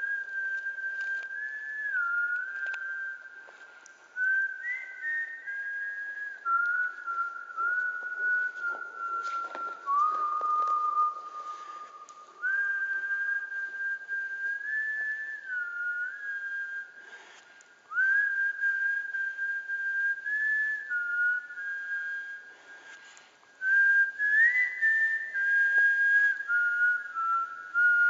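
A person whistling a slow, wandering tune of long held notes, each sliding up or down a small step to the next, with several short breaks.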